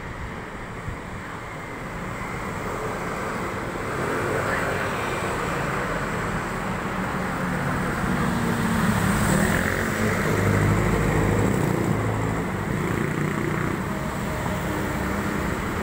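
Street traffic: engines and tyres of passing cars and vans, with a low engine hum that swells in the middle as a vehicle passes close.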